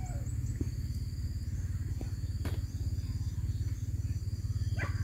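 A loud, steady low rumble with a fast, even throb. The tail of a rooster's crow fades out at the start, and faint insect-like high tones run throughout.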